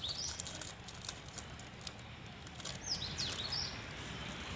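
A small bird chirping: quick, high, downward-sweeping calls at the start and again about three seconds in. Under them is a light rustle of a plastic snack packet being handled and emptied onto a plate.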